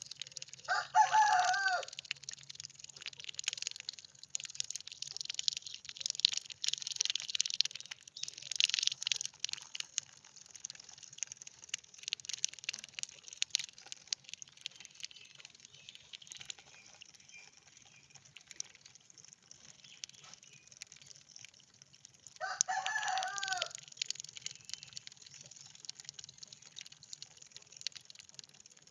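A rooster crows twice, about a second in and again about 22 seconds in. Under it runs a continuous high-pitched whistling chatter from a flock of lesser whistling ducks, with a faint low hum.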